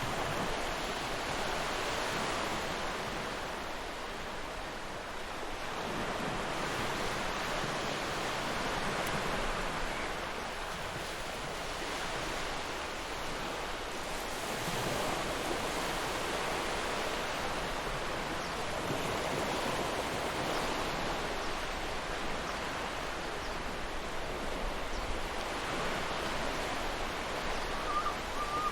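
Ocean surf breaking on a beach, a steady wash of wave noise that swells and eases every several seconds.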